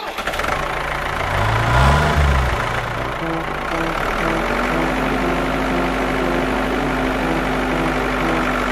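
Diesel engine of a JCB tractor started with the ignition key. About a second and a half in it catches and revs up briefly, then drops back and settles into a steady, evenly pulsing idle.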